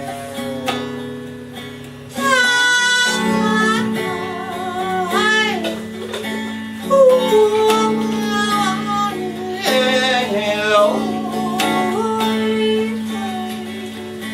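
Acoustic guitar accompaniment to a blues-style song, with a wavering lead melody bending in pitch over it during an instrumental break between verses.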